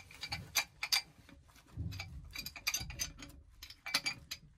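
Irregular metal clicks and clinks of a wrench being handled and set onto a brass threaded adapter on a copper pipe, with some low rustle of gloved hands between the clicks. The sharpest clicks come at the start and again about four seconds in.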